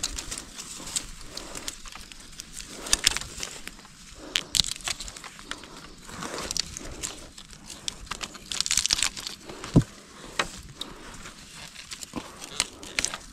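Dry, fire-scorched bamboo stems and twigs crackling and snapping as a hand pushes through a bamboo clump, with many small sharp clicks and louder bursts of crackling about three seconds in, around the middle and about nine seconds in. One dull knock comes just before ten seconds in.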